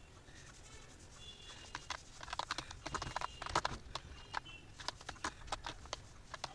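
Computer keyboard keys clicking in quick, irregular runs as someone types, sparse at first and then coming thick and fast from about two seconds in.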